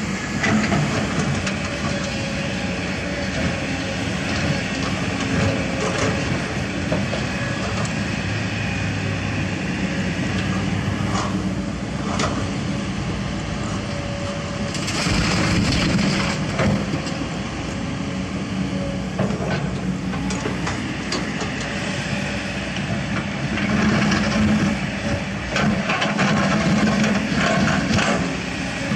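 Komatsu PC200 hydraulic excavator's diesel engine running steadily as its bucket digs into broken asphalt, with bursts of scraping and clattering rubble about halfway through and again near the end.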